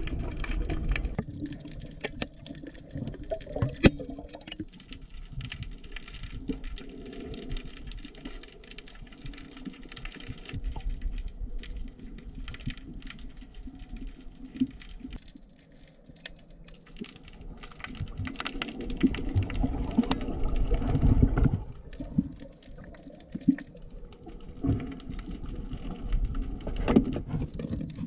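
Muffled underwater sound picked up by a camera in its housing: low rushing water and bubbles with scattered clicks and knocks, swelling louder for a few seconds about two-thirds of the way through.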